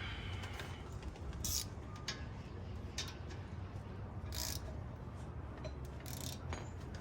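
Ratchet wrench clicking in a few short bursts while tightening a bolt on the front brake caliper, over a steady low hum.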